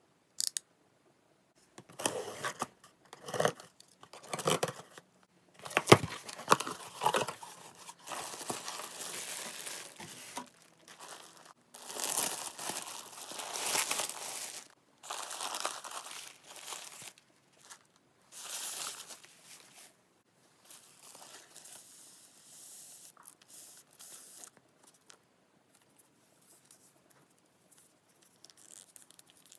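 Cardboard box being opened with a box cutter, then paper and plastic packaging crinkling and tearing as items are unwrapped. Sharp separate strokes come first, then long stretches of dense rustling and tearing, growing quieter and sparser in the last several seconds.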